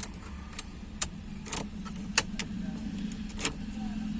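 Ford Figo ignition key being turned in the lock: a string of sharp clicks and key jingles, about seven in four seconds, over a low steady hum. No dash lights come on because the ignition circuit is dead, its fuse blown by a wire shorting to the body.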